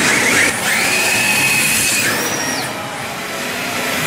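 Electric motors of radio-controlled drift cars whining as they drive and slide. One whine rises in pitch about half a second in and holds steady for over a second, and a shorter, higher whine follows.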